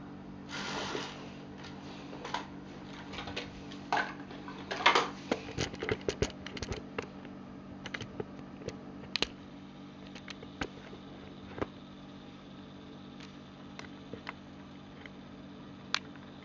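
Clicks, knocks and rustles of Lego Technic plastic parts being handled and worked, over a steady low hum. The clicks come in a quick cluster a few seconds in, then thin out to single clicks.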